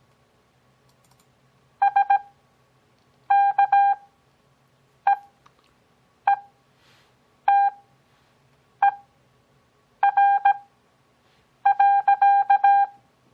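Morse code (CW) practice tone, a single beep keyed on and off in dots and dashes at 17 words-per-minute character speed with long Farnsworth gaps between characters (6 WPM overall); about eight characters are sent, spelling out part of a simulated on-air contact between two stations.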